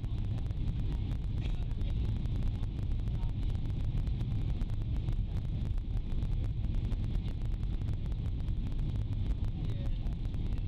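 Jet airliner cabin noise on descent: a steady low rumble of engines and rushing air, heard from inside the cabin by a window.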